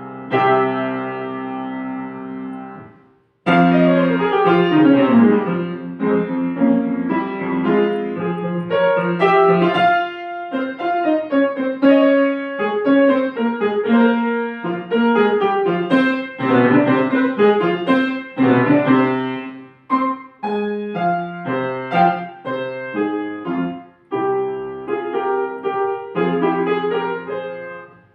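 Solo piano playing classical music. A held chord fades and stops about three seconds in, and after a brief pause the playing resumes with a steady stream of notes and chords.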